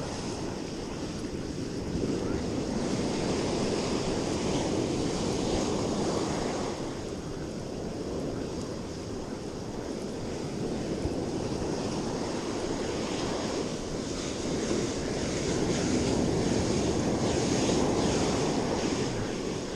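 Ocean surf breaking and washing up the beach, swelling and easing every few seconds, with wind buffeting the microphone.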